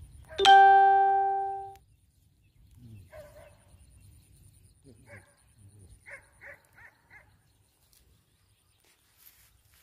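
A single loud chime-like ding about half a second in, ringing on one pitch and fading out over about a second. Faint short sounds follow, among them four quick high chirps about six to seven seconds in.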